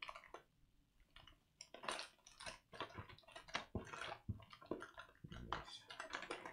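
Faint, irregular crinkling and rustling of packaged snacks in their wrappers as hands dig through a snack box.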